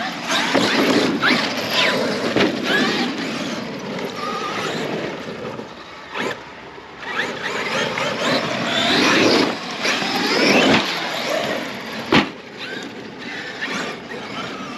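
Traxxas X-Maxx electric RC monster trucks driving, their brushless motors whining up and down in pitch with the throttle. There is a sharp knock about twelve seconds in.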